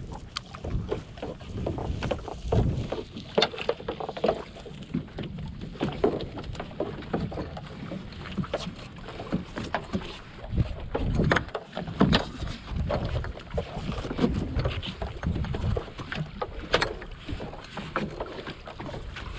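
Water slapping and sloshing against the hull of a small open boat, with irregular knocks and rustling as a gillnet is hauled in over the gunwale.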